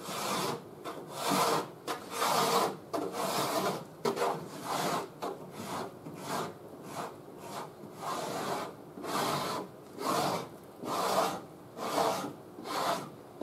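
Half-round Stanley cheese-grater (Surform) blade rasping across partly cured body filler, taking off the excess in repeated strokes about once a second and peeling it away in curled shavings.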